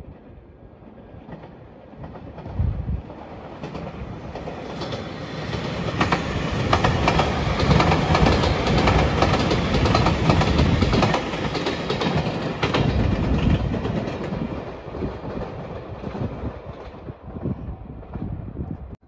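JR Shikoku 8000-series electric limited express (white Anpanman train) passing at speed, its wheels clattering over the rail joints. It grows louder as it approaches, is loudest in the middle as the cars go by, and fades away near the end.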